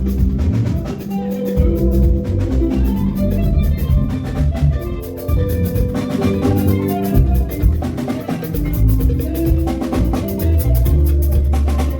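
Band music with drums and a strong bass line, playing continuously, as at a sound check.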